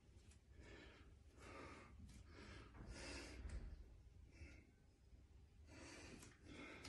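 A man breathing hard in short, noisy breaths, about one a second, while straining to hold flexed bodybuilding poses.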